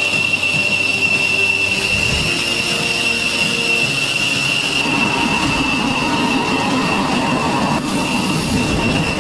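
F-16 fighter jet's engine running at ground idle while taxiing: a steady high-pitched whine, with a rougher low rumble joining about five seconds in.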